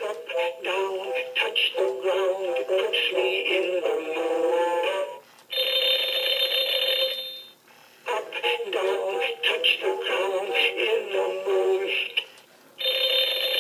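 Winnie the Pooh animated alarm clock toy playing a melody through its speaker, with notes changing quickly, twice broken by a single held note lasting about two seconds, about five seconds in and near the end.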